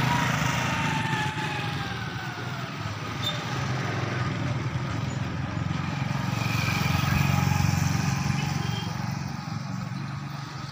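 Motorcycle engine running close by, its pitch sliding down over the first few seconds as it slows or pulls away, then the engine noise swells again a few seconds later.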